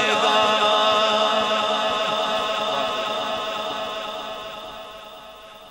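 A voice chanting one long held note with a wavering, vibrato pitch, fading out slowly.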